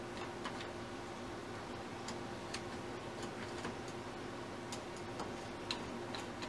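Light, scattered metallic clicks of a screwdriver and small screws against a Honda CB650's bank of carburetors as the loosened float-bowl screws are turned out by hand. A faint steady hum runs underneath.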